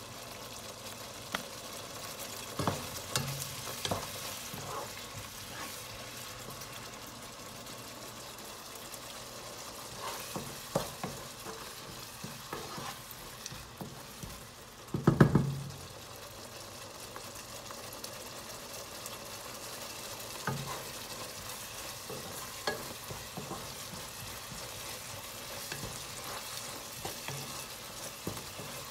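Curry sauce bubbling in a pan while a wooden spatula stirs it, knocking against the pan now and then; the loudest knocks come about halfway through.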